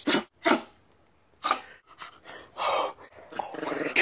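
Dog growling in short bursts, about five, the last one longer, during rough play between a Siberian husky and a small dog.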